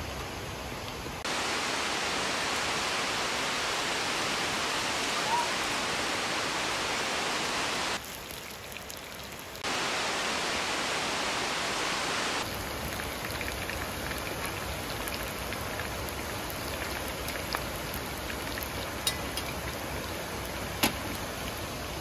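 Shrimp frying in hot oil on a griddle pan, a loud steady sizzle that drops away briefly about eight seconds in and then returns. From about twelve seconds in it gives way to the softer rushing of a stream and waterfall, with a few light metallic clicks of tongs near the end.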